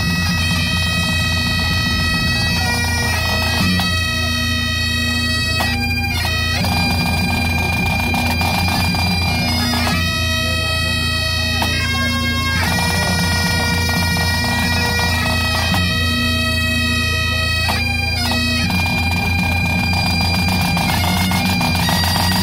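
Pipe band playing: Highland bagpipes sound a tune over their steady drones, accompanied by snare and tenor drums.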